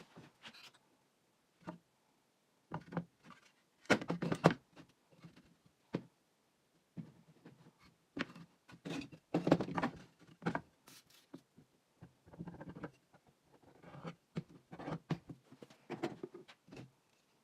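Scattered knocks, clicks and rustles, as of parts and tools being handled and set down, in irregular clusters with short quiet gaps between them; no motor is running.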